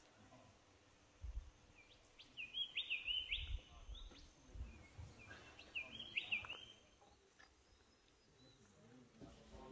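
A bird calling in two phrases of quick, rising notes, about two seconds in and again about five and a half seconds in, over scattered low rumbles on the microphone.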